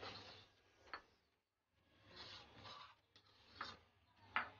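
Steel spoon scraping ground masala off a stone grinding slab (sil), in a few faint rasping strokes with sharp clicks of metal on stone, the sharpest near the end.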